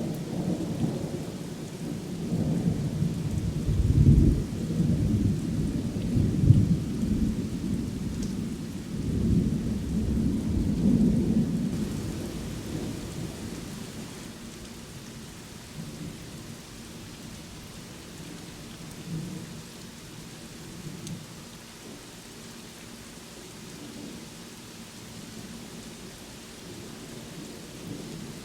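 Thunder rumbling over steady rain, with the loudest peals about four and six seconds in and another near ten seconds. The rumble then fades away about halfway through, leaving the even hiss of rainfall.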